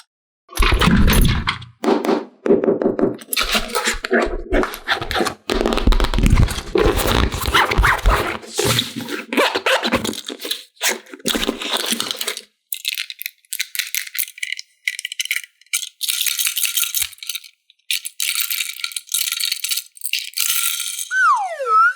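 Plastic toy parts and packaging being handled, rattling and clattering, then lighter, crisp crinkling and ticking. Just before the end a short tone swoops down and back up.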